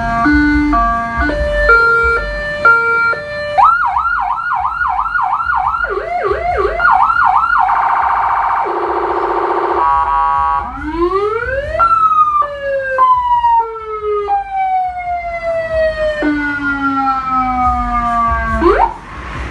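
Electronic emergency-vehicle siren cycling through its tones: first a two-tone hi-lo alternation, then a fast yelp of quick up-and-down sweeps, a steady buzzing horn tone for about two seconds, and then rising and long falling wail glides, with a quick rise near the end.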